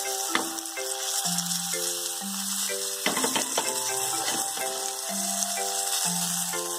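Background music with a simple stepping melody over the steady sizzle of a rice-flour-coated pomfret shallow-frying in oil on a tawa, with a few light clicks about three seconds in.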